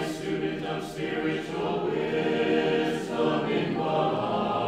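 Choir singing a cappella in slow, sustained chords, with brief breaks between phrases about a second in and again near three seconds.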